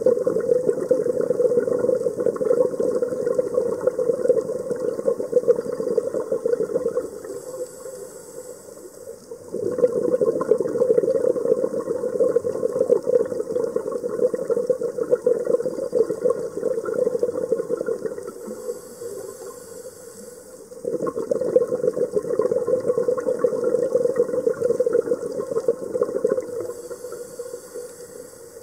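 A scuba diver breathing through a regulator underwater: three long bubbling exhalations, each followed by a short, quieter hissing inhalation, in a slow regular rhythm.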